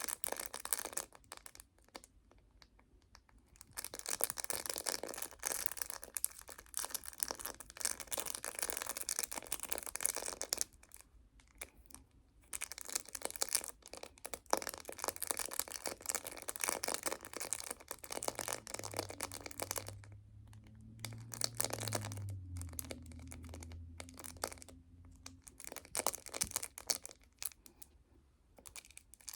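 Rapid, close-miked fingernail tapping and scratching on a phone case, in long runs of quick clicks broken by short pauses. A low hum sounds underneath for several seconds past the middle, stepping up in pitch partway through.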